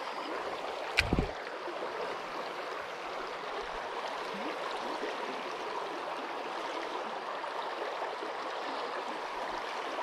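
Creek water flowing steadily over a rippled, shallow stretch, with a brief knock about a second in.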